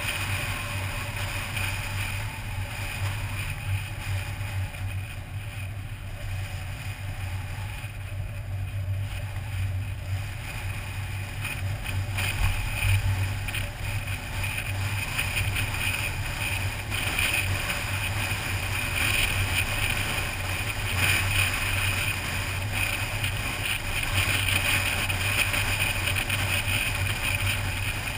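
A car driving along a highway: steady engine and tyre drone mixed with rushing wind, louder in the second half.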